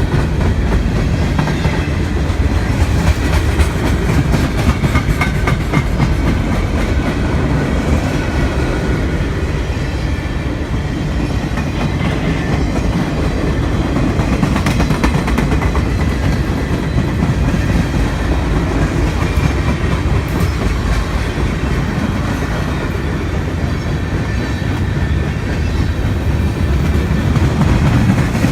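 Railroad train running past, a steady loud rumble with the wheels clicking over the rail joints.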